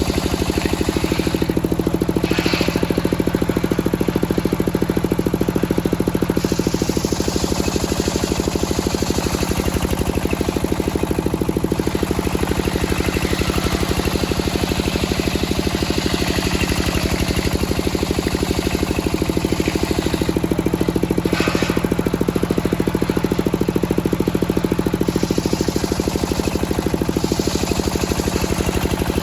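Engine-driven circular sawmill running steadily, its blade sawing a teak log, with a high cutting hiss that swells and drops as the cut goes on and two brief sharp knocks, one near the start and one about two-thirds through.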